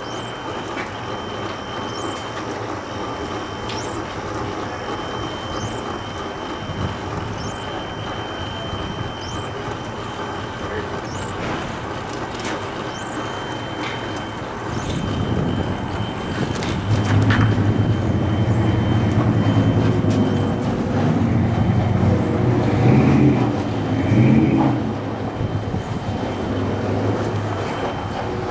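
Pierce fire engine's diesel engine idling in the station bay, with a steady high tone over it. About halfway through the engine grows louder and stays up for several seconds before easing back.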